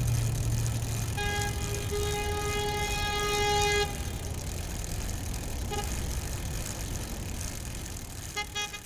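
Road traffic noise with a vehicle horn held for about two and a half seconds, starting about a second in. A few short beeps come near the end as the sound fades out.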